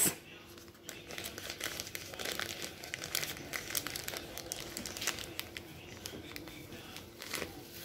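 Plastic packaging crinkling and rustling in the hands as a clear zip-lock bag is worked open: a steady run of small crackles.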